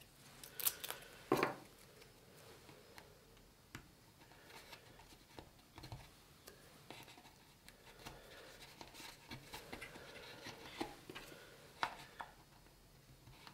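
Faint, scattered taps and light scratching as small wood slivers are handled and pressed into stripped screw holes in a wooden table frame, with two sharper clicks near the start.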